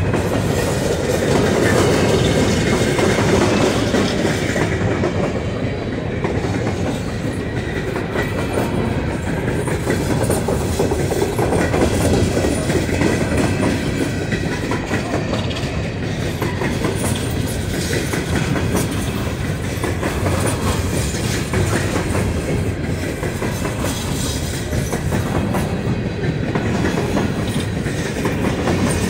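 Empty coal cars of a long freight train rolling past close by: a steady rumble and rattle, with the wheels clacking over the rail joints.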